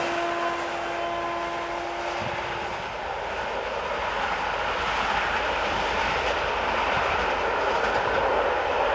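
Passenger train hauled by an SU45 Fiat-engined diesel locomotive running away along the track, a steady rushing rumble of wheels on rail. A few faint steady tones sound over the first two seconds or so and fade out.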